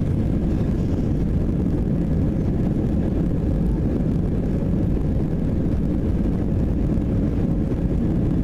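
Cabin noise of an Airbus A320 taxiing, heard from a seat behind the wing: a steady low rumble of the jet engines at taxi power with the airliner rolling along the taxiway, and a faint steady whine above it.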